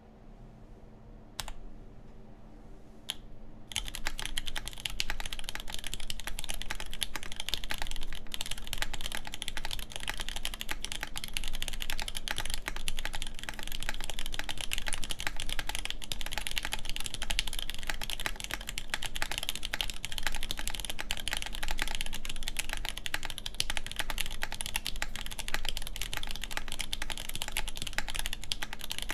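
LZ Reborn Edition mechanical keyboard with Nixdorf MX Black linear switches, a full aluminium plate and Desko keycaps being typed on. Two single keystrokes come first, then steady, fast typing from about four seconds in.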